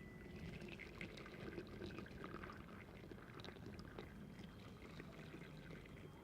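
Faint pouring or trickling liquid, with small scattered clicks and splashes over a low steady hum.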